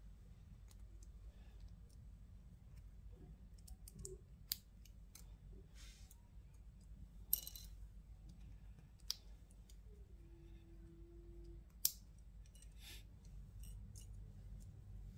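Lego Technic plastic parts clicking and snapping as they are handled and pressed together by hand, a handful of sharp clicks scattered among fainter ticks.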